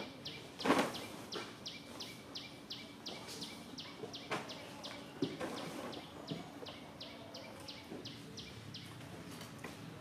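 Outdoor forest ambience: a short, high chirp repeated about four times a second, over a faint steady low hum. A brief loud noise cuts in about a second in.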